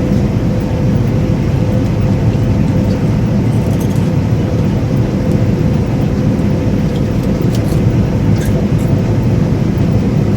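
John Deere combine running under harvest load, a steady low drone with a constant hum, heard from inside the cab.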